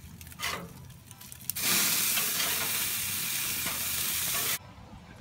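Hamburger patties sizzling on a gas grill. A loud, even sizzle starts suddenly about a second and a half in and cuts off sharply near the end.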